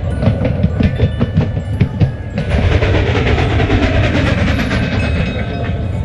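Train running on its track, clicking quickly and regularly over the rail joints; about two and a half seconds in the clicking gives way to a steadier rushing rumble. Faint bell-like music tones run underneath.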